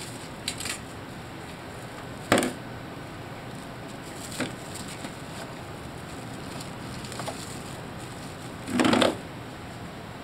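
A cat pawing and nosing through frozen food packages in a freezer compartment: a sharp knock about two seconds in, a lighter one a couple of seconds later, and a longer crinkling rustle of wrapped packages near the end.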